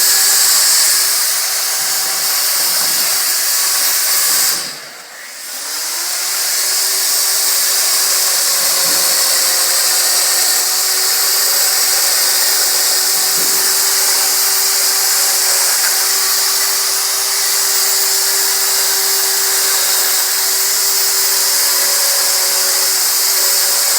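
Chainsaw running steadily at high speed while carving wood. About five seconds in it slows briefly, then speeds back up to its steady pitch.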